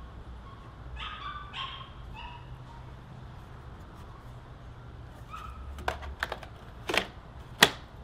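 Sharp plastic clicks and snaps as the blue clarifier cartridge is pushed and seated into its slot in the BeatBot AquaSense Pro robotic pool vacuum. There are about five clicks in the last two seconds, and the loudest comes near the end.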